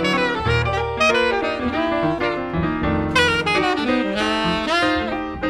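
Jazz saxophone playing a melodic line over piano accompaniment.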